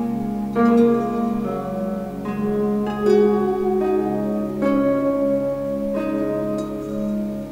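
Instrumental background music: held low notes under a melody whose new notes enter about once a second.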